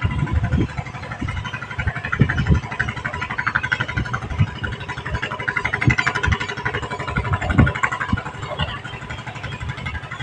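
A motor engine running steadily, with irregular low thumps throughout.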